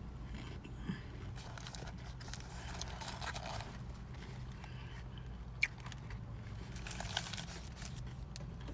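Close-miked chewing and biting of crunchy fast food, with a few sharp crunches, over a steady low hum.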